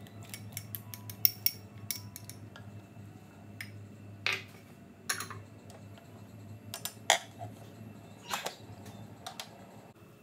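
A ceramic bowl clinking against the rim of a stainless steel pot as chunks of carrot and potato are tipped in, a quick cluster of sharp clinks in the first two seconds. Then wooden chopsticks stirring in the pot give about four louder knocks and scrapes, over a steady low hum.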